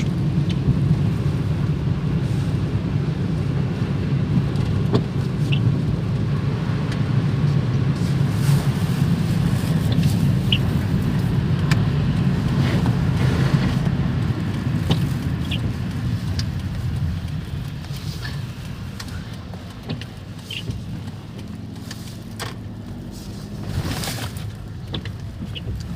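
A car engine running close by, a steady low drone that fades away over the last third. Scattered short high ticks and chirps sit over it.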